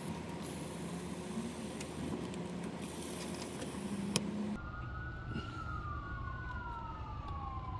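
Steady background noise with a low hum, then after an abrupt cut about halfway through, an emergency vehicle siren wailing, its pitch sliding slowly down and starting to rise again near the end.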